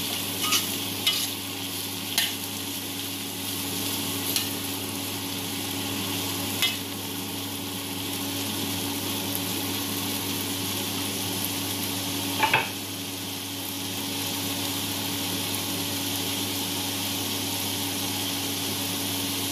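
Diced potatoes and carrots sizzling steadily in oil in a wok, with a metal spatula clinking and scraping against the pan as they are stirred: a few times in the first seven seconds and once more sharply about twelve and a half seconds in.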